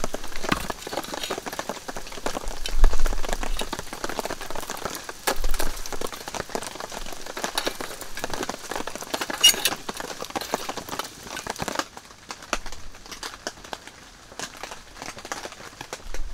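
Wood fire crackling and popping, with rain pattering in the background; one sharp pop about nine and a half seconds in, and quieter crackling after about twelve seconds.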